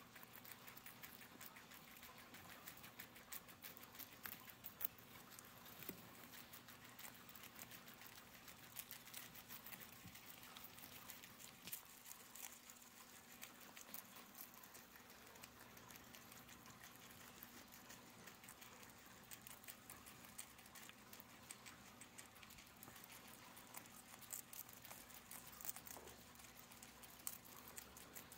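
A group of guinea pigs chewing hay and fresh leafy greens: faint, quick, overlapping crunching clicks with the odd louder crunch.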